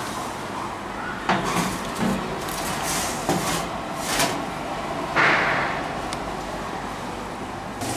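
Several light knocks and a louder clatter about five seconds in as a glass baking dish is set on an oven's wire rack and pushed in.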